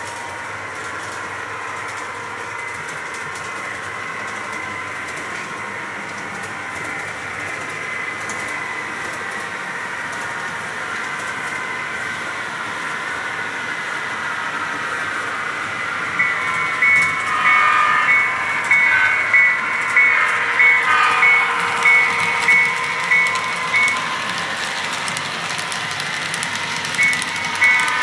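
An HO-scale model freight train runs past with a steady mechanical hum and a high whine. From about halfway, a bell rings about once a second for several seconds, then starts again near the end.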